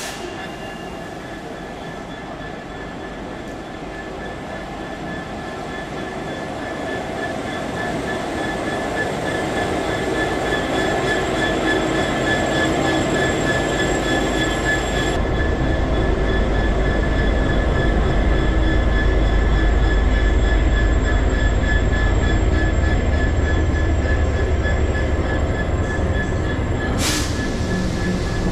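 Diesel freight train passing, getting louder as it approaches. Wheels on the rails give a steady high-pitched squeal, and a deep rumble from the locomotive and wagons swells about halfway through. A sharp click comes near the end.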